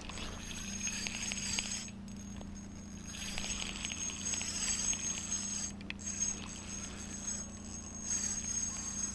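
Spinning reel cranked to retrieve a trout spoon, its gears and rotor whirring with a fine ticking in three spells with short pauses between: a stop-and-go retrieve.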